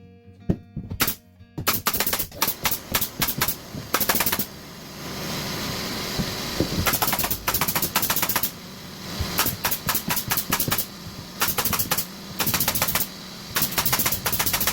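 Bursts of rapid sharp clicks and knocks, several a second, with a stretch of steady hissing noise in the middle, over background music.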